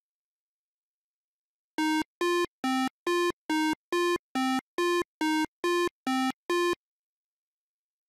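8-bit chiptune synth beeps: a run of about a dozen short square-wave notes, about two and a half a second, stepping between two low pitches. They start about two seconds in and stop near seven seconds.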